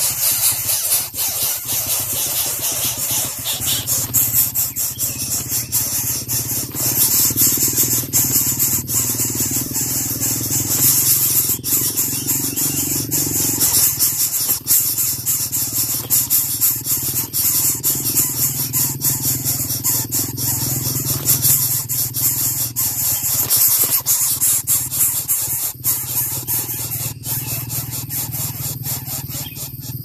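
Greater coucal nestlings begging in the nest as the adult feeds them: a steady, high, hissing squeal that flickers rapidly, over a low steady hum.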